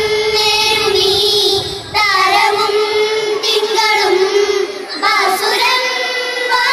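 A small group of children singing a Malayalam patriotic song together, holding long, wavering notes in three phrases, with brief breaks about two and five seconds in.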